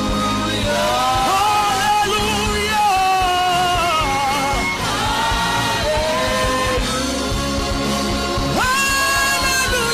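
Slow worship music: a solo voice singing long, wavering, sliding notes over a sustained instrumental backing, with no clear words.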